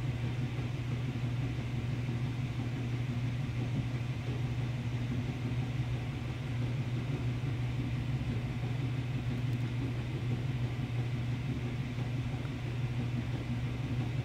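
Steady low mechanical hum with a faint even hiss above it, unchanging throughout.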